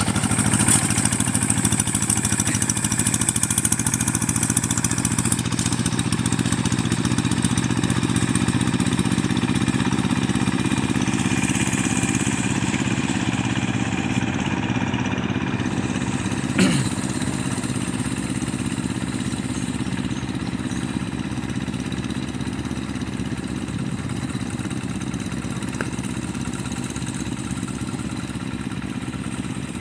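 Paddy-field tractor's engine running steadily under work, growing a little fainter in the second half. A brief sharp sound cuts in about two-thirds of the way through.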